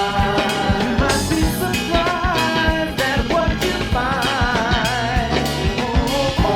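Rock band playing: drum kit on a steady beat, guitar and bass, with a wavering sung or lead line in the middle.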